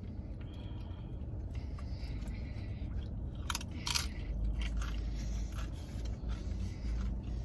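Close-up chewing and crunching of food eaten by hand, with a few sharp crunches about three and a half seconds in, over a low steady rumble.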